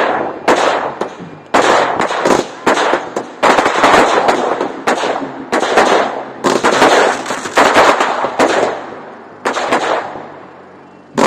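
Fireworks going off in a fast series of loud bangs, each with a crackling, fading tail. They thin out and die away about nine seconds in, with a last bang near the end.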